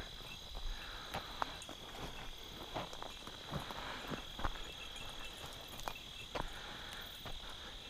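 A steady, high, even chirring of night insects, with scattered faint crackles of footsteps through dry brush and grass.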